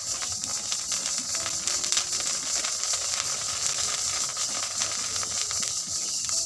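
Rice grains puffing into muri in hot sand in a pan over the fire: a steady, dense hiss full of rapid tiny crackles and pops.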